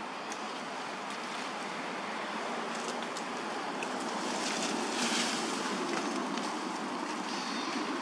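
A steady rush of wind, with leaves and twigs rustling as a baby macaque clambers through the branches. There are a few small clicks, and a louder rustle about five seconds in.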